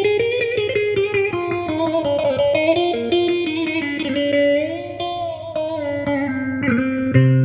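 Yamaha PSR-A5000 arranger keyboard playing a melody on an electric guitar voice: a run of quick notes with a few smoothly bent notes, then a held chord with a strong low note struck shortly before the end.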